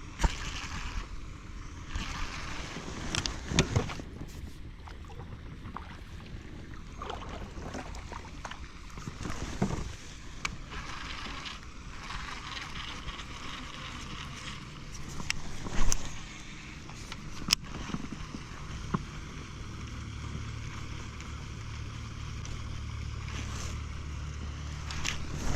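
Kayak on a river: water and wind noise with scattered knocks and clicks, the loudest about 16 seconds in. A steady low hum starts about 19 seconds in.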